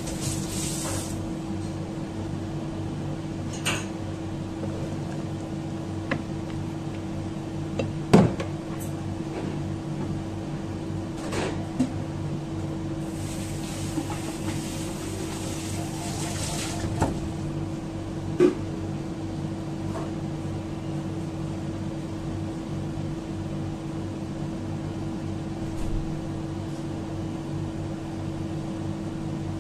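Steady machine hum, with a few scattered light knocks and clicks, the loudest about eight seconds in, and a few seconds of hiss in the middle.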